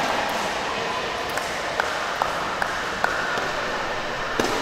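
A woven plastic sepak takraw ball tapped up repeatedly: five sharp, evenly spaced taps about two and a half a second, starting about a second in, then one louder tap near the end, over a steady murmur of crowd noise in the hall.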